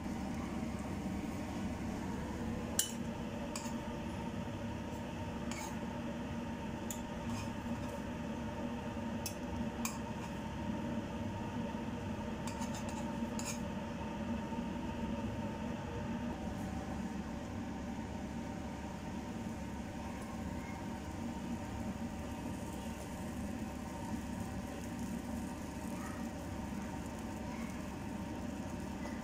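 Steady kitchen background hum, with about ten sharp clinks of utensils against dishes and cookware scattered through the first half.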